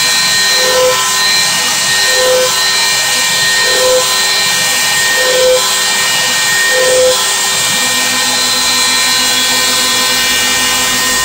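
Bosch 1 HP compact router mounted as a CNC spindle, running at steady speed: a high motor whine with a steady hiss. A short note repeats about every one and a half seconds, and a lower hum joins about eight seconds in.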